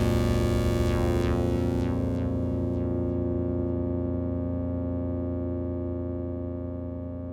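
Roland MC-707 synthesizer playing a sustained atmospheric chord. The bright top end fades away over the first three seconds, and the chord then slowly dies out.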